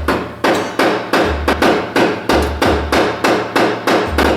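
Repeated hammer blows, struck steadily at about three a second, trying to knock loose a stuck part that he blames on RTV sealant holding it.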